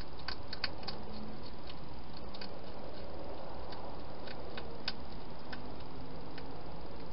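Wild hedgehog feeding from a bowl: irregular small clicks and crunches over a steady hiss, with a cluster in the first second and another around four to five seconds in.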